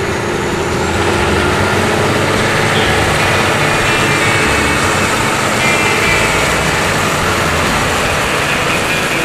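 A John Deere farm tractor's diesel engine running under load as it drives close past, towing a loaded dump trailer, with the steady noise of the tyres rolling through wet gravel.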